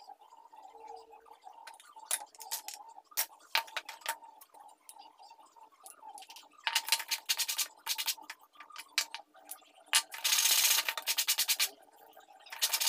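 Small wooden pieces clicking and knocking as they are handled on a workbench, then a wooden piece being hand-sanded with sandpaper in quick back-and-forth strokes, in bursts from about halfway through.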